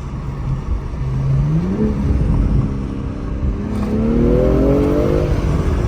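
BMW M340's inline-six engine running and rising in pitch twice, first about two seconds in and again over the fourth and fifth seconds, then easing off.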